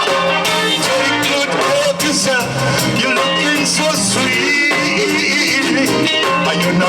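Upbeat Caribbean band music with a steady beat, horns or lead instruments and some singing.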